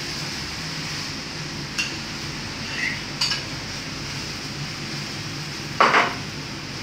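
Steady background hum of a working restaurant kitchen, with a few light clinks of utensils and dishes and a louder clatter near the end.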